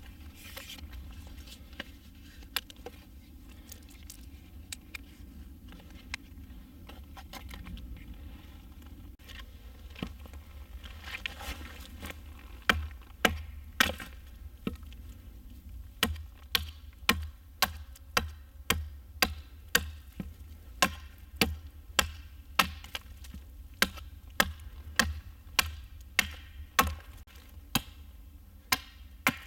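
Hatchet chopping the end of a wooden stick against a tree stump, sending off wood chips. There are a few scattered knocks at first, then from about halfway a steady run of sharp chops about two a second.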